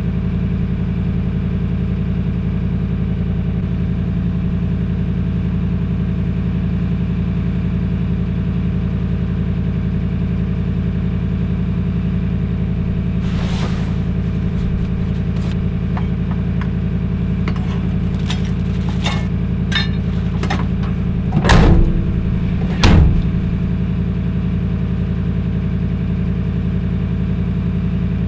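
Pickup truck engine idling steadily. In the middle come a run of small clicks and knocks, followed by two loud thumps about a second and a half apart.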